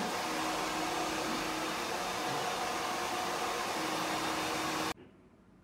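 Handheld hair dryer blowing steadily at a salon chair, cutting off suddenly near the end.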